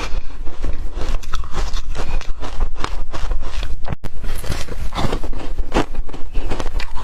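Close-miked chewing of ice, a dense run of irregular crunches and crackles, with a momentary break about four seconds in.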